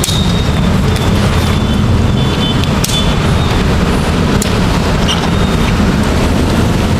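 Steady low rumble with a few sharp clicks, about three and four and a half seconds in, as plastic tent clips are hooked onto the aluminium frame poles.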